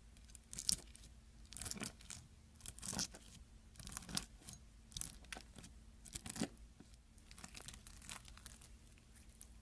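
Slime being squeezed and worked by hand: irregular wet crackles and small pops as air pockets burst, coming in clusters and thinning out near the end.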